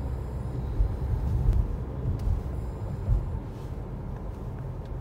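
Low, uneven road and engine rumble heard inside a moving car's cabin, with a few brief louder bumps.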